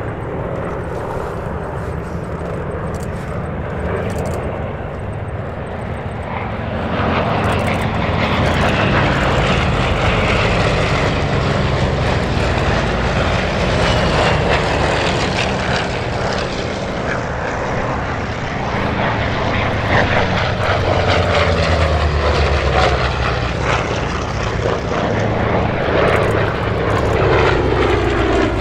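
Propeller aircraft engines droning as planes fly past. The sound swells about seven seconds in, and the engine pitch falls as aircraft pass, once mid-way and again near the end.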